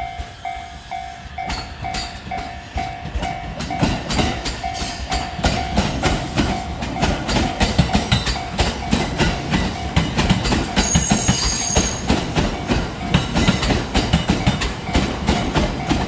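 Level-crossing warning bell ringing in a steady, quick pulse while a train approaches. After about four seconds the train passes with a continuous rhythmic clatter of wheels over rail joints, and the bell fades under it. A brief high-pitched whine or squeal comes in partway through.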